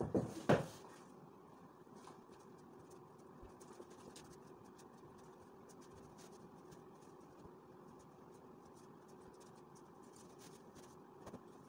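A thump in the first second as a padded bench is set down, then faint rustling and scratching of cotton pillowcases being pulled over pillows, over a low steady room hum.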